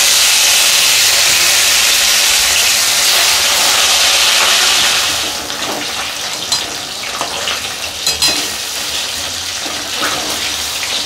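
Rohu fish pieces sizzling loudly in hot oil in a kadai, the sizzle dropping to a quieter steady frying about five seconds in. A metal spatula clinks against the pan a few times as the pieces are turned.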